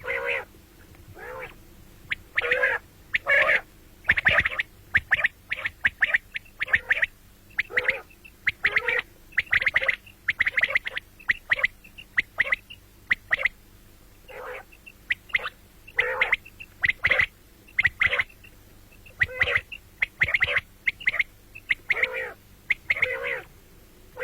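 Common quail calling over and over: short, sharp notes in quick groups, with brief pauses between the groups.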